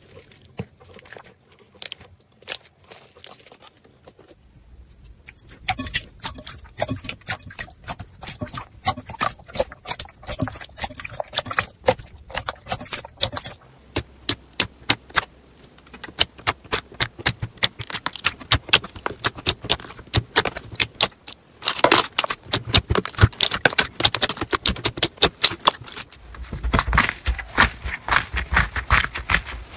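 Slime being pressed, squeezed and poked by hand, giving quick, dense crackling and popping as air pockets in it burst. The sound is soft at first, grows busier from about five seconds in, and changes character several times as different slimes are worked, loudest and fullest near the end.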